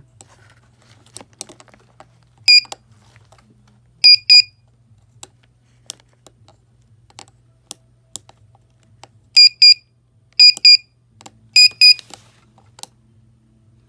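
The piezo buzzer of a hand-soldered electronic clock kit gives short, high beeps, once and then mostly in pairs, with small clicks between them as it is powered up and set.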